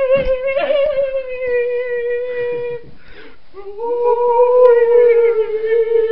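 A person humming two long, steady notes at the same pitch, each about three seconds long, with a short break between them. There is a single thump just after the start.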